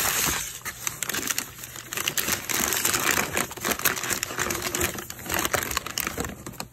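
White packing paper crinkling and rustling as a wrapped piece is pulled out of a cardboard box and unwrapped by hand. It is a rapid, dense run of crackles that dies down near the end.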